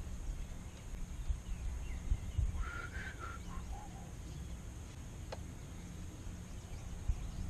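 Quiet background with a steady low rumble. A faint bird call comes about three seconds in, and a single sharp click a little after five seconds.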